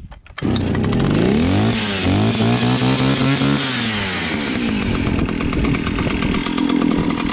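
Old two-stroke chainsaw running on stale fuel, started with the choke off. It catches about half a second in, revs up, drops back about four seconds in and settles into a steady idle.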